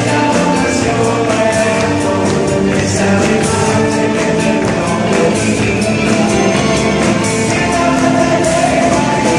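A rock band with electric guitars, drums and keyboard playing a song, with a male vocalist singing.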